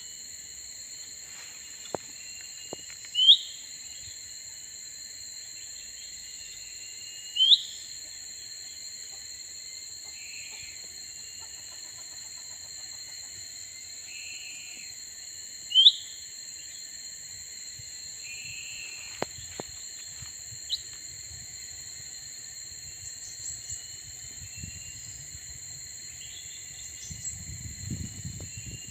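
Cucak ranting bird calling: short, sharp notes that slide upward, three of them loud and a few softer ones in between, over a steady high-pitched insect drone.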